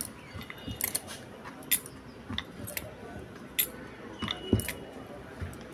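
Hands shaping a stuffed dough ball on a wooden rolling board, giving scattered light clicks and taps at irregular intervals. A brief ringing clink comes about four and a half seconds in.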